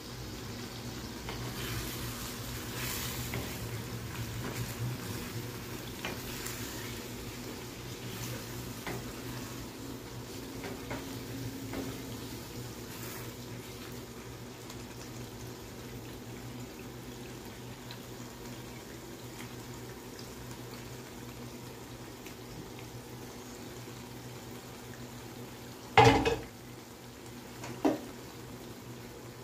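Thick spinach and meat curry simmering and bubbling in a nonstick frying pan on a gas burner, stirred with a spatula. Two sharp knocks come near the end, about two seconds apart.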